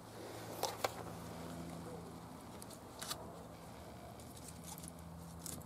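A few sharp clicks and knocks of pieces of wood being handled and set into a small wood fire, the loudest a little under a second in and another about three seconds in, over a faint steady low hum.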